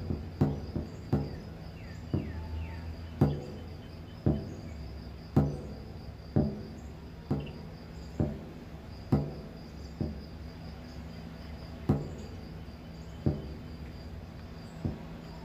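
A steady high-pitched insect trill, cricket-like, runs under sharp knocks that come about once a second, each with a short ring; the knocks are the loudest sound.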